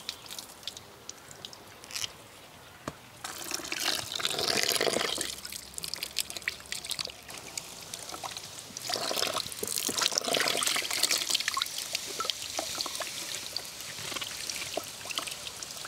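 Water splashing and dripping as tender Mangalore cucumbers are rubbed clean by hand in a bucket of water, with water draining off a woven bamboo basket. There are two louder stretches of sloshing, about three seconds in and again around nine seconds.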